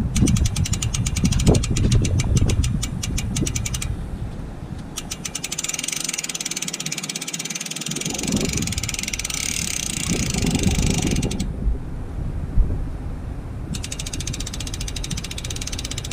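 Hope Pro 4 rear hub's freehub ratcheting as the rear wheel spins freely: a fast, even buzz of pawl clicks in three spells, the middle one longest and densest.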